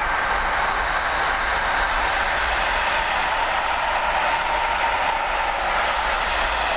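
Container freight train wagons rolling past: a steady, continuous noise of steel wheels running on the rails.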